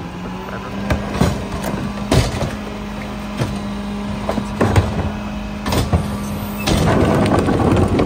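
Mack Granite rear-loader garbage truck running with its engine held at a raised, steady speed while the rear cart tipper works, with several hard knocks of the plastic cart against the tipper. Near the end, a loud, dense rush of heavy trash tumbling out of the upturned cart into the hopper.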